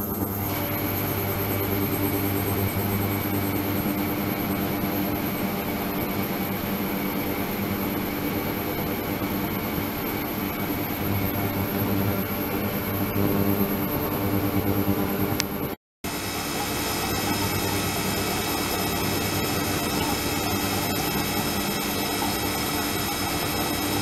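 Ultrasonic cleaning tank with circulating water, running steadily: a continuous hiss and hum with several steady tones. The sound cuts out for a moment about sixteen seconds in, then the same sound resumes with a slightly different set of tones.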